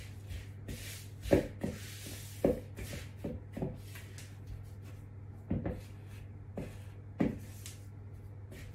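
A spatula scraping and knocking irregularly against a mixing bowl while stirring crumbly flour-and-ghee shortbread dough, the sharpest knock about a second and a half in. A steady low hum runs underneath.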